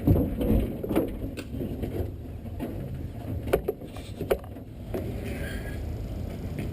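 A steady low rumble with scattered short metallic clicks and knocks of hand tools and parts being handled while working on the truck.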